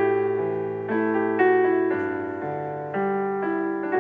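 Background piano music: notes and chords struck every half second to a second, each one dying away before the next.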